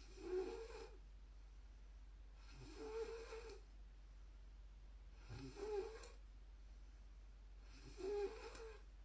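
A woman snoring in her sleep: four snores, one about every two and a half seconds, each lasting about a second.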